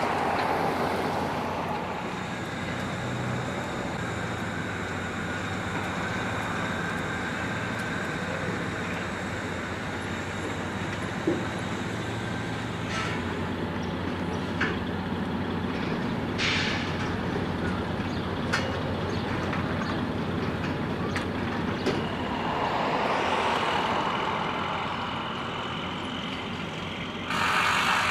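A large engine runs steadily, with occasional sharp metallic clanks and knocks from dismantling work, and a short loud hiss near the end.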